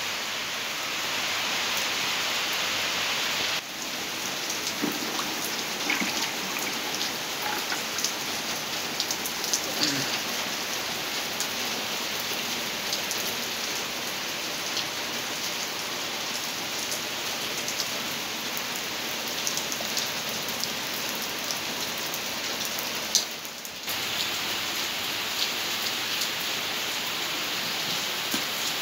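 Steady rain falling on a wet paved yard and puddles, an even hiss with scattered drop ticks.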